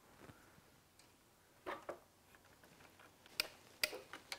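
Faint tool handling at a motorcycle engine: two soft knocks a little under two seconds in, then from about three seconds in a run of sharp, irregular clicks from a hand tool being worked.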